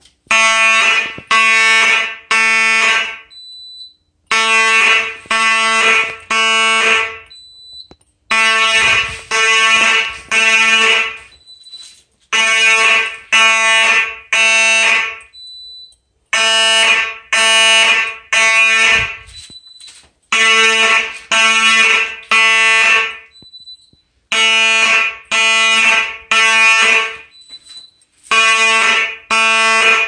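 Simplex fire alarm horns sounding together in the code-3 (temporal) pattern: three blasts of about half a second, then a pause of about a second and a half, repeating every four seconds. The system is in alarm from a pulled manual pull station.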